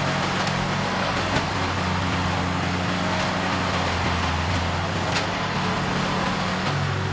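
Heavy wood-processing machine's diesel engine running steadily under load, with a few sharp knocks; the clearest is about five seconds in.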